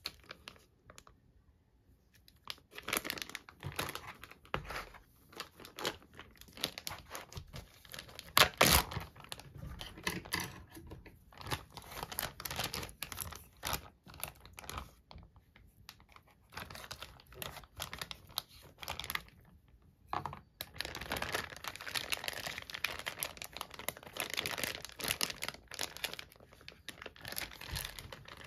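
Zip-top plastic bag of soy-marinated fish being handled and opened: plastic crinkling and rustling in irregular bursts, loudest about eight seconds in.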